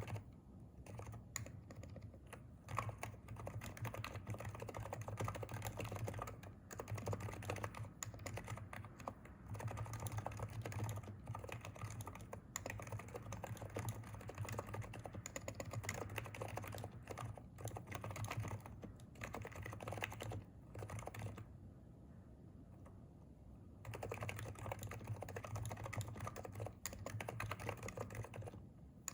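Continuous fast typing on a Hansung electro-capacitive (Topre-style, non-contact) keyboard, dense keystroke clicks with a pause of a couple of seconds about three quarters of the way through.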